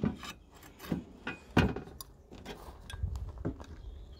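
Two stone tiles set down and slid on a galvanized metal hive roof: a few separate knocks and scrapes, the loudest at the very start and about a second and a half in, with rubbing and handling between them.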